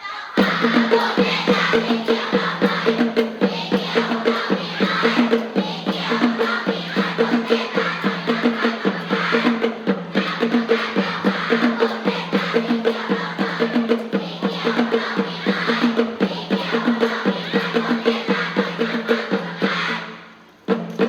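Upbeat music with a fast, steady drum beat and a repeating bass line, which stops abruptly about a second before the end.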